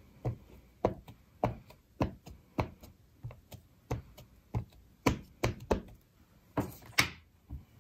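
A Tuxedo Black Memento ink pad's plastic case is tapped again and again onto a clear photopolymer stamp to re-ink it: about fourteen sharp little taps, roughly two a second, with a short rub near the end.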